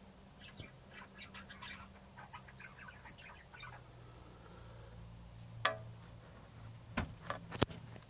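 Budgerigar chirping in a quick run of short chirps for about three seconds, over a low steady hum. Then a sharp knock, and three more near the end, which are the loudest sounds.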